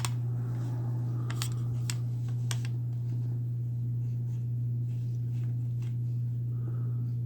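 A steady low hum runs throughout, with a few light clicks in the first couple of seconds from a pocket knife and measuring tool being handled.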